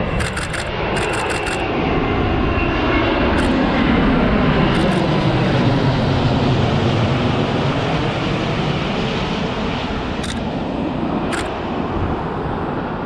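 Boeing 787-9 jet airliner on final approach passing low overhead, its engine and airframe noise swelling to a peak about four to six seconds in, then slowly fading as it moves away to land.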